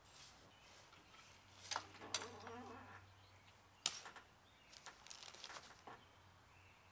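Faint metal clicks and knocks from a tow-behind lawn aerator's tine lever being pulled and latched. The sharpest knocks come about two and four seconds in, with a cluster of smaller clicks around five seconds.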